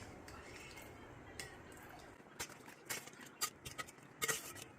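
Faint, scattered light clicks and clinks of a spoon against a pan or bowl, scooping soaked bilimbi slices out of hot water, with a few louder clicks near the end.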